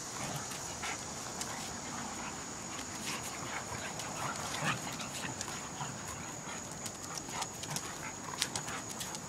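A golden retriever and a German Shepherd mix puppy play-wrestling: scuffling, mouth noises and many short clicks of claws on the stone patio, with a couple of louder sounds about halfway through and near the end.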